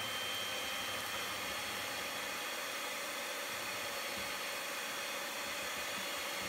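Electric hand mixer running at one speed, its twin beaters whisking eggs and sugar: a steady high motor whine over a hiss.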